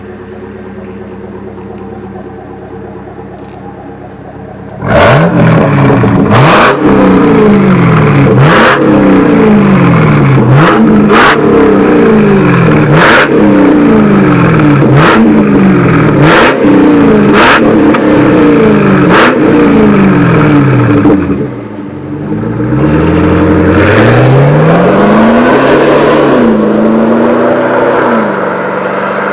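Chevrolet Camaro SS V8 with a straight-through sport exhaust (rear and intermediate mufflers removed, only the catalytic converter kept) idling, then revved hard about nine times in quick succession, with a sharp crack at many of the rev peaks. It ends with one slower rev before settling back to idle.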